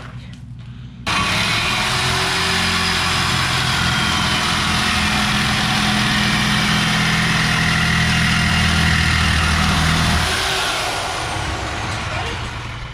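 Power cutting tool slicing through a truck's exhaust tailpipe. It starts abruptly about a second in, runs steadily and loudly through the cut, then winds down near the end.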